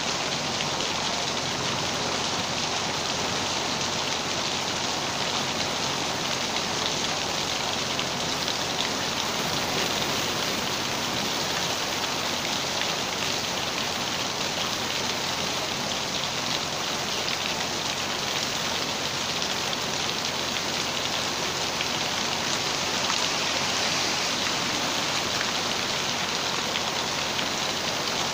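Steady rain falling and pattering on a surface, an even hiss without let-up.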